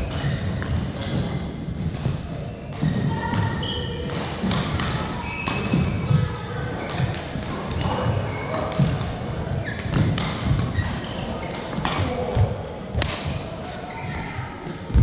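Badminton being played: sharp racket hits on the shuttlecock at irregular intervals among the thuds of players' footsteps on the court.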